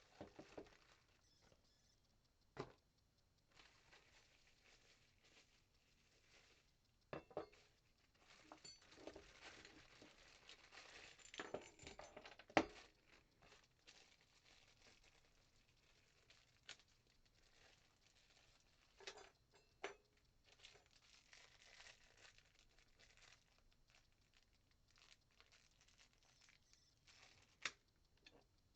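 Faint, scattered handling noises: rustling and crinkling, with a dozen or so sharp clicks and knocks, the loudest knock about halfway through.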